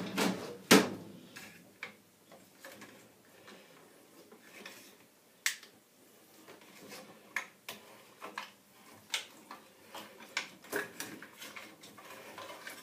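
Furnace gas valve being unscrewed by hand from its gas pipe: scattered light metallic clicks and taps, with two louder clanks within the first second.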